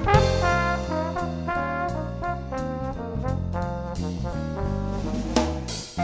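Background music: an upbeat jazzy tune led by brass, over a stepping bass line and drum hits.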